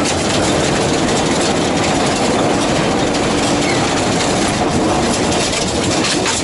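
Subaru Impreza GC8's flat-four engine running hard under load, heard from inside the cabin, with loud tyre and gravel noise from driving fast on a dirt track.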